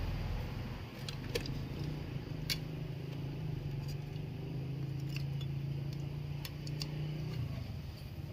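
Scattered light clicks and rattles as a satellite receiver's circuit board and black plastic case are handled and the board is lifted out, over a steady low hum.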